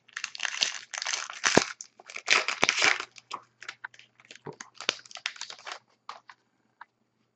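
Hockey card pack wrapper crinkling as it is opened and handled: dense rustling for about three seconds, then scattered light clicks and rustles of cards.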